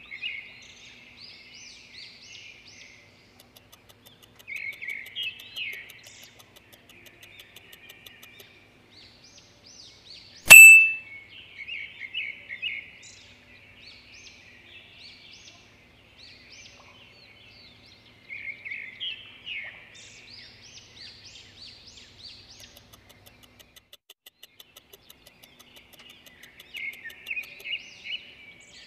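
Birds chirping and trilling in short bursts every few seconds. A single sudden, loud ding comes about ten seconds in.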